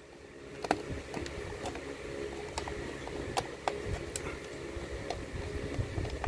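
Small precision screwdriver tightening a screw into a plastic light housing: scattered, irregular small clicks and ticks of the bit and plastic, over a faint steady hum.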